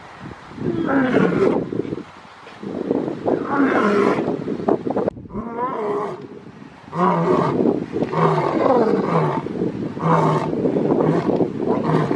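Male lion roaring: two long, full roars in the first few seconds, then a series of shorter roars at about one a second.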